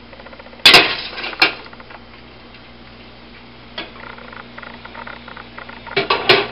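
Metal kitchenware clattering: a slotted spoon and stainless steel pot being handled. Two sharp clanks come about a second in, the first the loudest, then a lighter knock near the middle and a quick run of clanks near the end.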